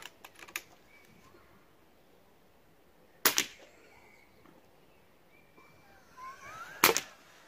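Two pre-charged pneumatic air rifle shots about three and a half seconds apart, each a short sharp crack, fired at a swinging string target.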